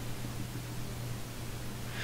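Steady hiss with a low, even hum: the background noise of the recording microphone and room, with no other sound.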